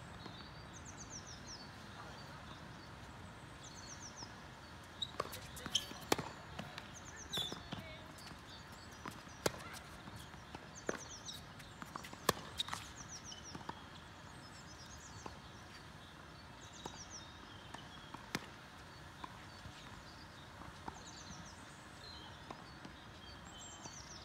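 Tennis balls being struck by rackets and bouncing on the court: a run of sharp pops in the first half, then a few more later, over a steady outdoor background hiss. A bird repeats a short, high, falling chirp every couple of seconds.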